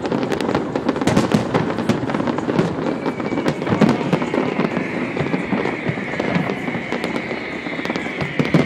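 Fireworks display: a rapid, continuous barrage of bangs and crackling shell bursts, with a steady high whistle joining about three seconds in.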